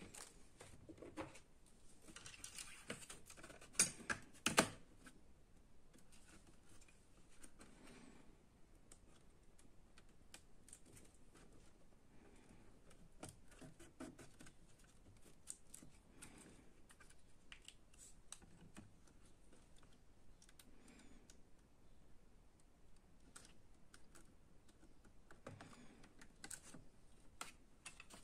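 Faint scattered clicks and taps of small plastic and metal parts being handled inside an open laptop chassis as a hard-drive ribbon cable and a 2.5-inch hard drive are fitted, with a few sharper, louder clicks about four seconds in.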